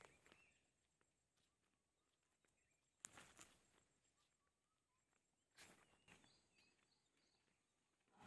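Near silence, broken by two faint, brief noises about three seconds in and again about five and a half seconds in.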